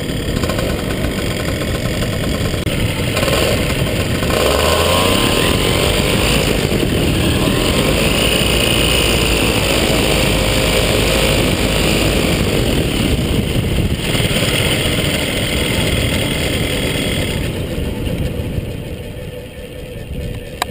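120cc paramotor engine running steadily as the pilot descends, its pitch shifting about four to six seconds in as the throttle changes, then quietening near the end as he comes down close to the ground.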